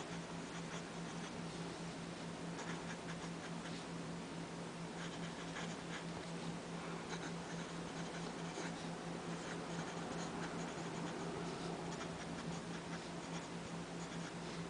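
Lamy Safari fountain pen with an extra-fine steel nib writing on paper: faint, irregular scratching of the nib in short strokes, with a steady low hum underneath.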